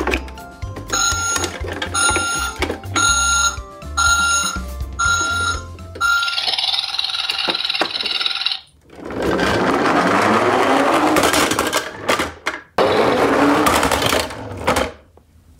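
Toy garbage truck's electronic sound effects: a run of beeps, about two a second, followed by longer hissing, whirring sounds that rise and fall in pitch as the truck is pushed along.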